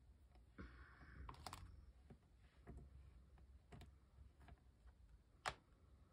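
Faint handling noise of small craft pieces being picked up and set down on a desk: scattered light clicks and taps with a brief rustle about a second in, the sharpest click about five and a half seconds in.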